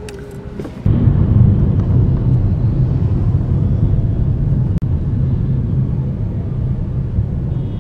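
Car in motion heard from inside the cabin: a steady low rumble of engine and road noise that starts suddenly about a second in.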